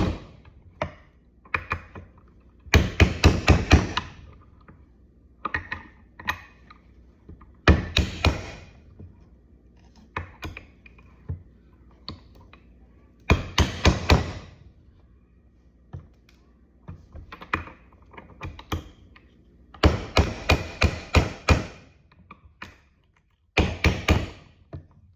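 Hammer blows on steel parts, in several quick bursts of rapid strikes with single knocks in between: parts being tapped home while installing king pins in a car's front steering knuckle.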